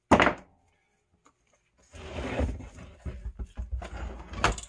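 A sharp thunk, then about three seconds of scraping and rubbing as a vinyl window frame is shifted and tilted on a wooden workbench, ending in a sharp knock.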